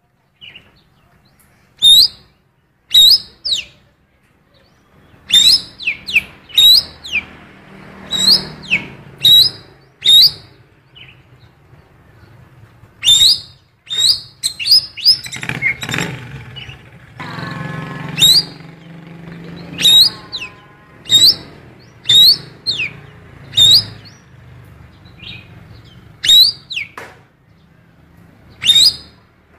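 A cucak keling songbird repeating sharp, quick rising chip calls about a second apart, mimicking the calls of a female Oriental magpie-robin (kacer), the kind of filled-in song used to provoke magpie-robins into singing. Around the middle the calls run together with a stretch of lower, rasping chatter.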